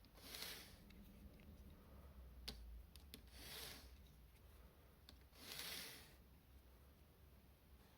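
Faint handling sounds: three soft rubbing swishes, at the start, a little after three seconds in and just before six seconds, with a few small sharp clicks between them.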